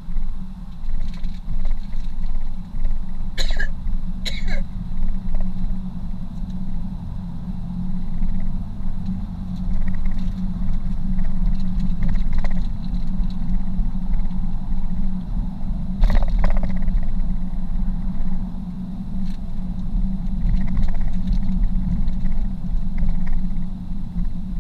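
Steady low rumble of a car driving, heard from inside the cabin, with two sharp knocks a second apart a few seconds in and another knock about two-thirds of the way through.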